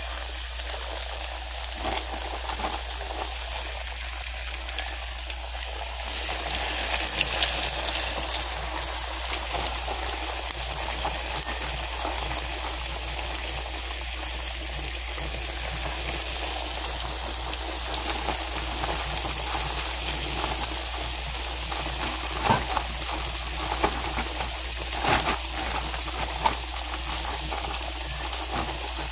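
Breaded buffalo fish fillets deep-frying in hot oil: a steady sizzle and bubbling that gets louder about six seconds in, with a few sharp pops near the end.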